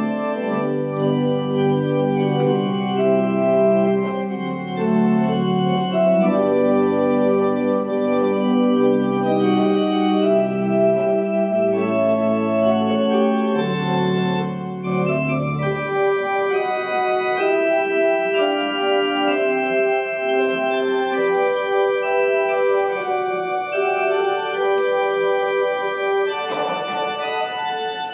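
Organ music: slow, sustained chords with held notes, and a low bass part that drops out a little over halfway through.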